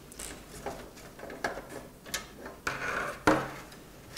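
Clicks, knocks and rustling of hands working at a PC case's bottom fan mount to take out a 120 mm fan and fit a 140 mm Noctua fan. A sharp click about three seconds in is the loudest sound.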